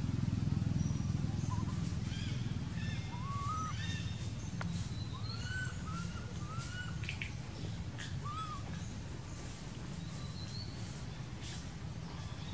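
Short arched chirping calls, several in quick succession through the middle, over a low steady hum.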